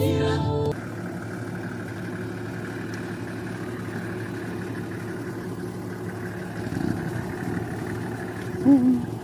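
Engine of a Toyota Land Cruiser running steadily as it rolls slowly along a dirt road. Choir music cuts off under a second in, and a brief, louder pitched sound rings out near the end.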